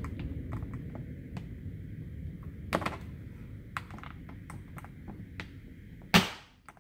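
Small plastic clicks and knocks as a trim removal tool works a push-pin clip out of a car's trunk trim panel, with a sharper snap about three seconds in and a louder one near the end.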